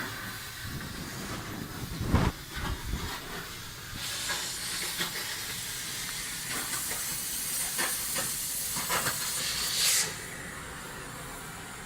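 Steady hiss of pressurised gas jetting out, louder from about 4 s in and cutting off abruptly near the end, with a metallic knock about 2 s in and scattered clicks.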